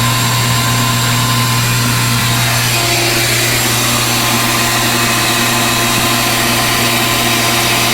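Bee vacuum running steadily, sucking honeybees out of the comb through its hose, with a slight shift in its tone about three seconds in.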